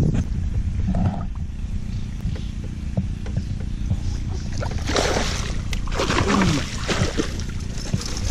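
A boat's motor running steadily with a low rumble, with two short rushing bursts about five and six seconds in.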